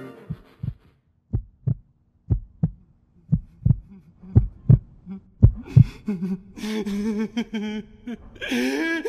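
Heartbeat sound effect: paired low thumps, lub-dub, about once a second, growing louder. From about six seconds in, a pitched voice-like sound comes in over it.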